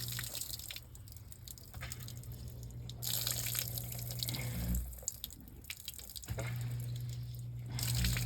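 GE dishwasher draining: the drain pump runs with a steady low hum under water sloshing and dripping. The hum drops out briefly near the middle, then comes back.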